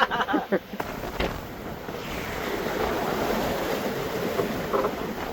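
Water rushing along the hull of a sailing yacht under way, with wind buffeting the microphone. A steady rush that grows a little louder about two seconds in.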